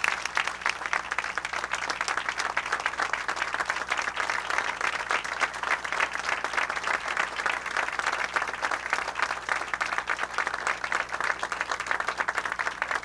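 Audience applauding: many people clapping together at an even level.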